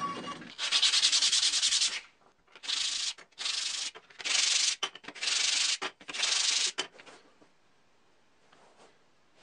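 Sandpaper rubbed by hand over wooden parts in six separate strokes, the first the longest, then a pause of near quiet for the last couple of seconds.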